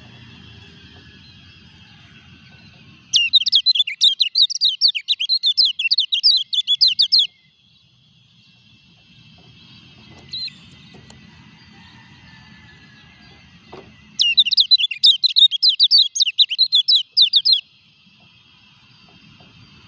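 Caged kecial kuning white-eye singing two loud runs of rapid, high chattering notes, each about four seconds long, with a single short chirp between them. The bird is in moult (ngurak) yet still sings.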